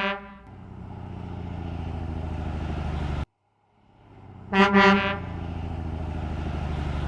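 Truck horn and engine sound: a horn toot fades into a steady engine running, which cuts off suddenly about three seconds in. After a brief silence two quick horn toots sound and the engine runs again.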